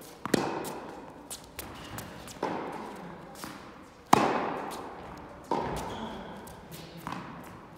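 Tennis balls struck by rackets in a rally: sharp pops about every one and a half to two seconds, each ringing on in the echo of a large indoor hall, the loudest about four seconds in. Lighter taps of the ball bouncing on the court fall between the hits.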